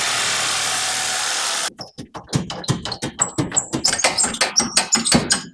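A handheld cordless power tool runs steadily against the rusted spring-mount bracket on the Jeep frame for under two seconds, then stops abruptly. A fast, irregular string of metallic knocks and clinks follows as the loosened rusty bracket is worked free.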